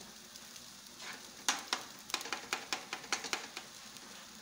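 A metal spoon stirs thick cooked beans in a small frying pan on the stove, scraping and tapping against the pan in a quick run of about five strokes a second for about two seconds, over a faint sizzle.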